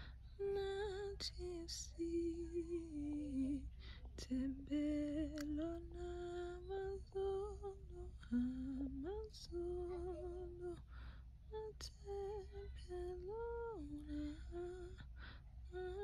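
A woman's voice softly humming a slow tune, one melodic line with gentle pitch steps and slides, over a steady low background hum.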